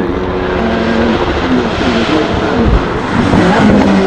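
A high-performance car's engine accelerating hard past on the hillclimb course, its pitch climbing and dropping with gear changes.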